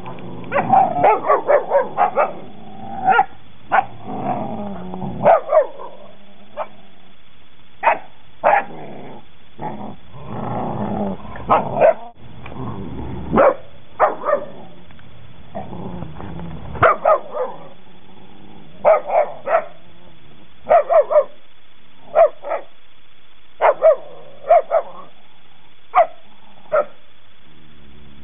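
Working line German Shepherd puppies, eleven weeks old, play-fighting: short barks and yips in quick runs all through, mixed with rough growling.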